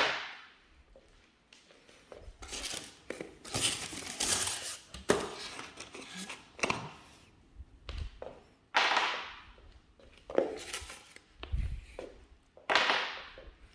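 Flat-pack desk parts being handled: a series of knocks and thunks as boards and pieces are moved and set down, with longer scraping sounds in between.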